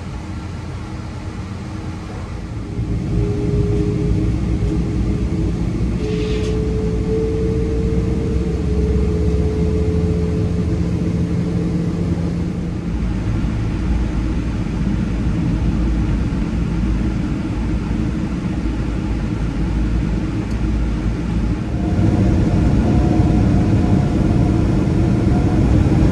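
Boeing 777-200 engines heard from inside the cabin: a low, steady rumble with a steady whine that grows louder a couple of seconds in. Near the end it gets louder again and a higher whine appears as the engines spool up for the takeoff roll.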